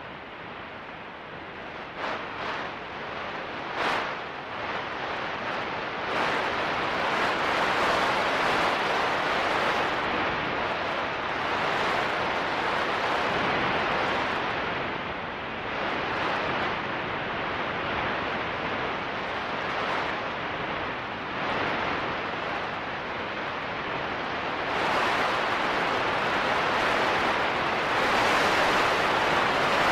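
Solar radio emission from an M8.4-class solar flare, picked up by a radio receiver and played as audio: a surging static hiss with a few sharp crackles around two to four seconds in. It grows louder at about six seconds in and again near the end.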